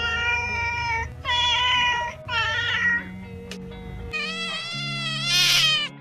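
A kitten meowing four times in drawn-out calls, with a pause before the last one, over background music with steady low notes.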